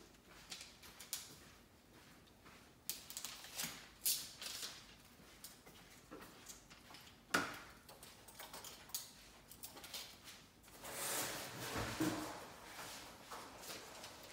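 Intermittent light clicks and taps from hands and tools working window film on a glass door, with a sharper tick about seven seconds in and a second or so of steadier rustling near the end.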